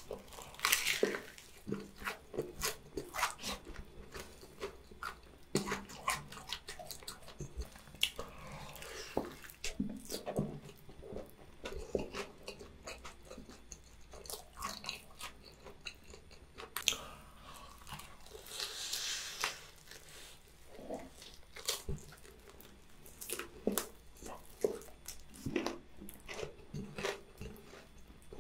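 Close-miked eating of crispy fried chicken drumsticks: repeated sharp crunches of the fried coating as it is bitten, then wet chewing, with occasional longer hissy crackles.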